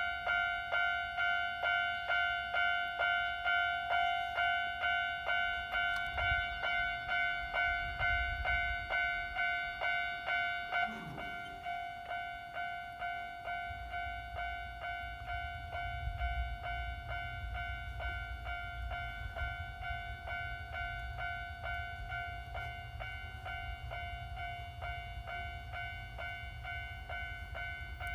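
Japanese railway level-crossing warning bell ringing: a repeating electronic ding, about two and a half strokes a second, that turns noticeably quieter about eleven seconds in. A low rumble runs underneath for much of the time, a train passing over the crossing.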